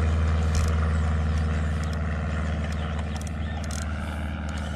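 Outboard boat motor idling, a steady low hum that eases off slightly toward the end.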